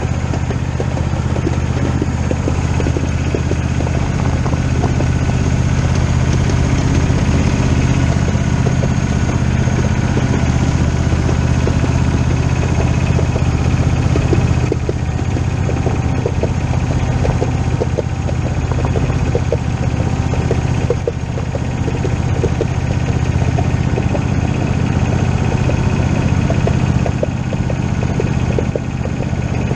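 A motor running steadily at an even pitch, with a light crackle over it.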